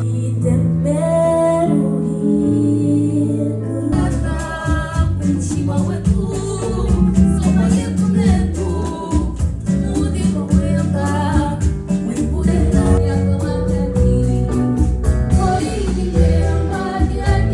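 Music: a song with a lead singer over a band with guitar and a steady beat, opening with about four seconds of sustained chords before the full band comes in.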